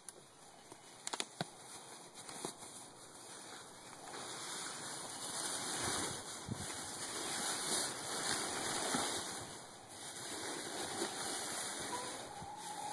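Shredded paper and a plastic bag rustling as handfuls of paper are pulled from the bag and packed into a nest box, getting louder about four seconds in.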